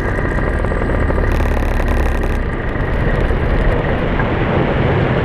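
Paramotor engine and propeller running steadily at flight power, a loud continuous drone.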